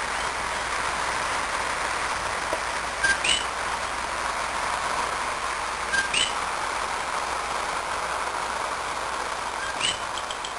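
Common coqui tree frogs calling their two-note "co-QUI": a short low note followed by a higher upswept one. Three calls come about three seconds apart over a steady hiss.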